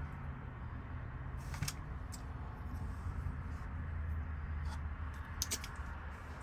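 A steady low hum with a few light, sharp clicks: one about one and a half seconds in, another half a second later, and a quick cluster of clicks near the end.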